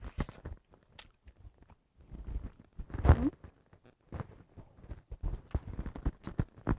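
Scattered small clicks, taps and mouth sounds of a baby being spoon-fed, with a short rising voice sound about three seconds in.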